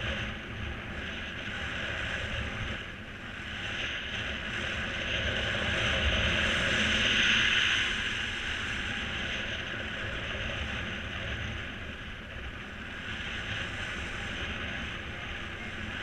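Airflow rushing over the microphone in flight under a paraglider, a steady hiss that swells louder in the middle and then eases off.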